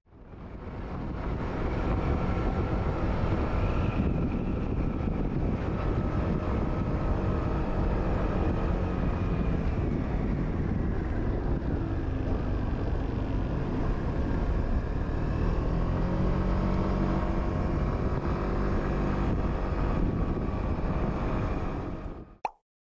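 Suzuki Burgman 200 scooter's single-cylinder engine running on the road with heavy wind rush over the microphone. Its pitch rises and falls a few times as speed changes. The sound fades in at the start and cuts off suddenly near the end.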